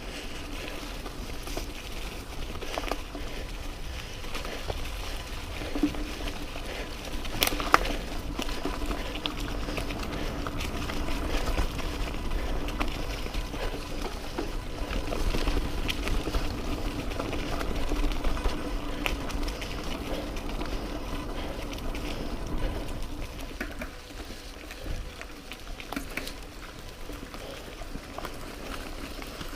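Mountain bike rolling down a dirt trail: the tyres rumbling over rough ground with scattered knocks and rattles as it takes bumps, one sharp knock about seven and a half seconds in.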